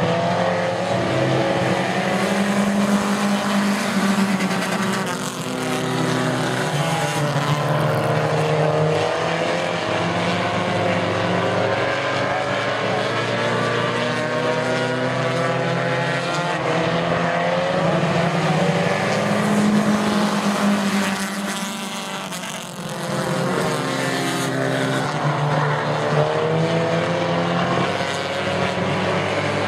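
A pack of race car engines running hard around a short oval, several engines at once. Their pitch climbs along the straights and drops as the cars back off for the turns, and the sound swells and fades as the pack comes round, dipping briefly about two-thirds of the way through.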